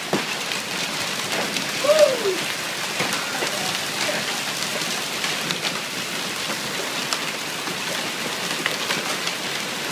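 Marble-sized hail pelting down on the deck and yard: a steady dense hiss peppered with sharp ticks of hailstones striking. About two seconds in, a brief exclamation falls in pitch.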